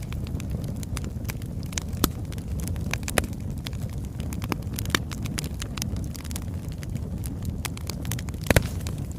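Burning wood logs crackling, with irregular sharp pops over a steady low rumble; the loudest pop comes near the end.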